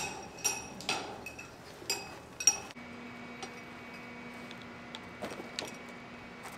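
Golf clubs clinking against each other in a golf bag carried on the shoulder: several sharp metallic clinks in the first three seconds. Then the sound changes suddenly to a steady low hum, with two faint clinks near the end.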